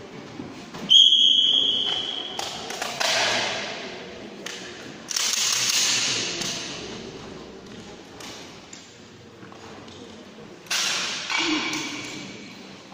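Metal parts of a firearm being handled by feel: a few sharp clacks and knocks, the first about a second in with a ringing metallic ping, and later ones trailing off into a fading hiss.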